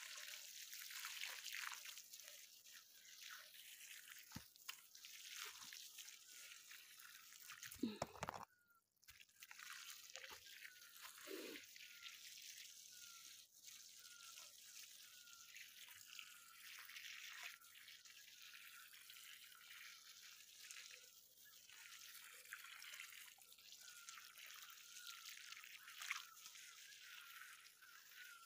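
Water pouring from a garden hose onto dry soil, a faint steady splashing trickle. A brief knock about eight seconds in.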